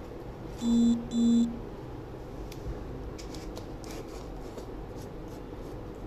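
Two short electronic beeps in quick succession, each about half a second long, about a second in, over a low steady hum; a few faint small clicks follow.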